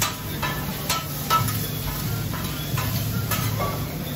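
Metal spatula scraping and clinking on a hot steel hibachi griddle as chicken and vegetables are turned, with irregular sharp taps about twice a second. Light sizzling of food on the griddle runs under a steady low hum.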